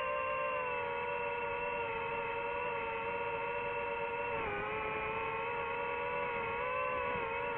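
DJI FPV drone's motors and propellers whining steadily, the pitch wavering slightly and dipping briefly about halfway through before settling back.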